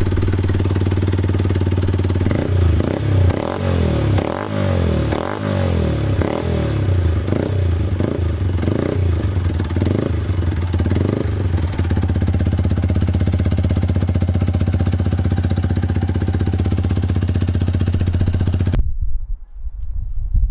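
Yamaha MT125's 125 cc single-cylinder four-stroke engine idling, then blipped by hand on the throttle about a dozen times in quick succession, each rev rising and falling, before settling back to a steady idle. The sound cuts off suddenly near the end.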